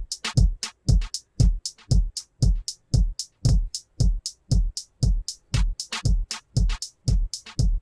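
Drum loop playing, a kick drum about twice a second with sharp hi-hat hits between, run through a compressor with its amount turned up toward heavy compression.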